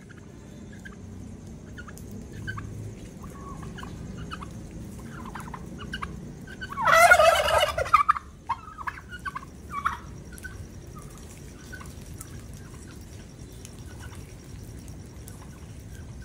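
Domestic turkey gobbling: one loud, rapid rattling gobble lasting about a second midway through, followed by a few shorter calls, with soft scattered calls from the flock around it.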